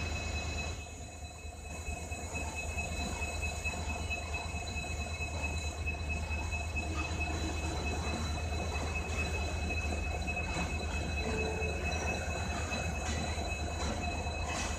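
Diesel-hauled passenger train at a station platform: the locomotive's low, steady engine rumble with a steady high-pitched squeal over it.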